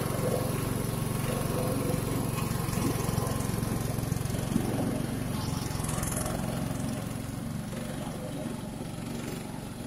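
Small petrol engine running steadily under load, driving a sago pith grater. The level eases slightly over the last few seconds.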